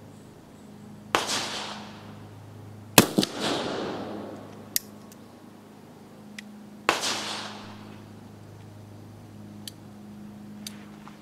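Uberti Walker .44 cap-and-ball revolver firing three shots, about one, three and seven seconds in, each a sharp report with a short echoing tail. The loudest comes around three seconds and is followed almost at once by a second crack. Small metallic clicks of the action come between and after the shots.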